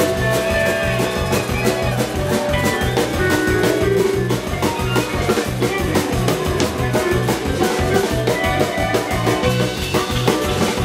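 Live band playing an instrumental passage with no vocals: fiddle, banjo and guitar over a drum kit keeping a steady beat.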